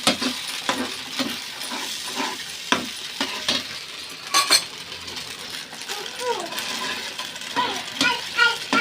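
Sauce sizzling in a pan as cornflour slurry is stirred in, with a spoon clicking and scraping against the pan and a sharper pair of knocks about halfway through.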